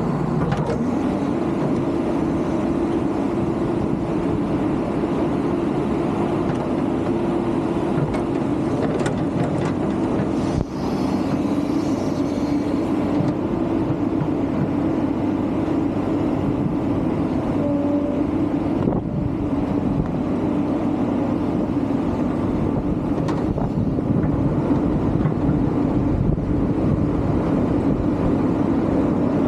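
Hydraulic excavator's diesel engine running steadily while it works, with a brief dip about a third of the way through and a few light knocks.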